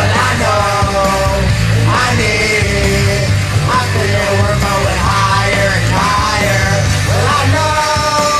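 A man singing loudly, half yelling, over a rock backing track. His phrases swoop up at their start, about every one and a half seconds, over a steady beat and bass.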